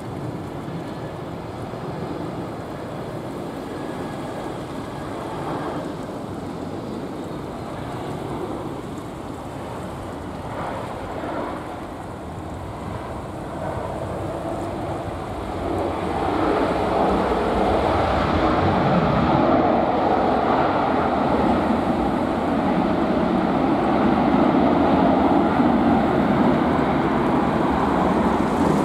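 A steady rushing noise of jet aircraft mixed with wind on the microphone. It grows louder about halfway through.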